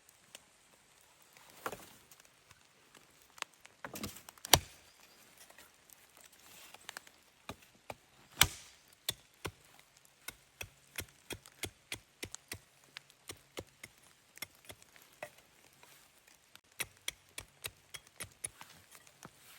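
Wood being struck or chopped by hand: a few loud, sharp knocks in the first half, then quicker, lighter taps at about two to three a second.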